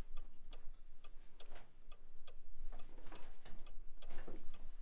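Steady light ticking, about two ticks a second.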